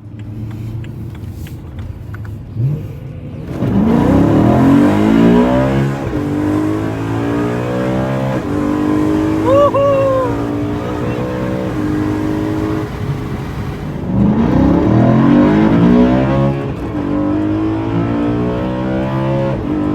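BMW E93 M3's S65 V8 running through a catless X-pipe with resonators and the stock mufflers, accelerating hard twice with the engine note rising sharply and breaking at the gear changes. Between the two pulls it cruises with a steady low rumble.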